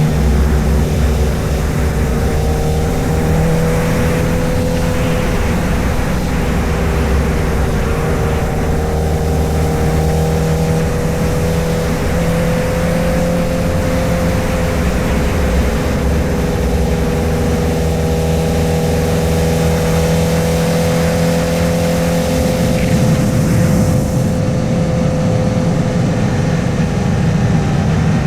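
A 2008 Honda CBR1000RR's 999cc inline-four motorcycle engine running at a steady, nearly constant cruising speed, with rushing wind noise over it. The engine note dips slightly near the end as the bike slows.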